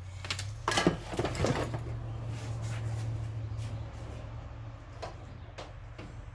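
Handling noise: a burst of rustles and knocks about a second in as things are picked up and moved, then a few single clicks, over a steady low hum.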